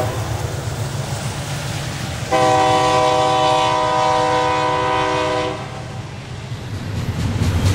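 Freight train rumbling past with steady wheel noise. A multi-chime diesel locomotive air horn sounds one long chord of about three seconds, starting about two seconds in.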